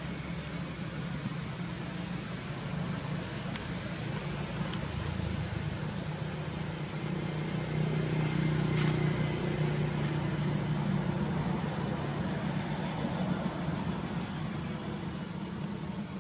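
A steady low engine hum, like a motor vehicle running nearby, growing a little louder about halfway through and then easing back.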